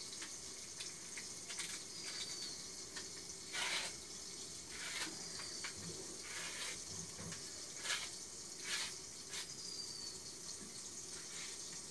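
Kittens play-fighting on a cloth-covered lap: faint rustling of fabric in short bursts over a steady low hiss.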